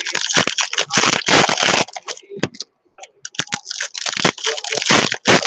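Foil wrapper of a Topps baseball card pack crinkling and tearing as it is opened by hand. The crackling comes in dense runs, with a short sparse lull about two seconds in.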